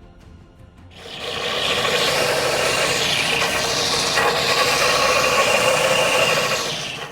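Steel cleaver blade being abraded: a steady rasping noise that starts about a second in and cuts off near the end.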